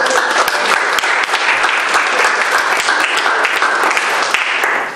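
Lecture-hall audience applauding, many hands clapping together; it breaks off near the end.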